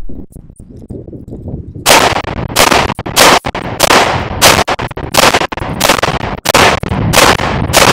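A Llama Max-1 .38 Super 1911-style pistol firing a string of about ten shots at a steady pace of roughly two a second, starting about two seconds in, with no long pause between shots. The pistol is shooting 125-grain jacketed hollow points from a Chip McCormick magazine, and the even pace fits it feeding and cycling each round without a jam.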